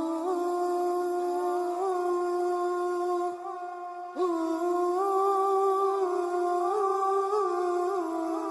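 Background music of a single voice humming a slow, wordless melody in long held notes with small ornamental turns. One phrase ends about three seconds in and a new one starts a second later, sliding up into the note.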